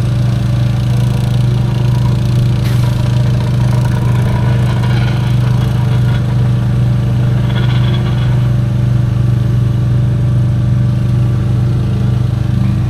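Heavy paving equipment's engine running steadily at a constant speed, a loud even hum.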